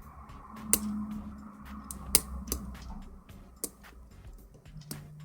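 Sharp metallic clicks and taps of lock picking tools, a hook pick and tension wrench, working a 6-pin euro cylinder lock: about five separate clicks, over a faint steady low hum.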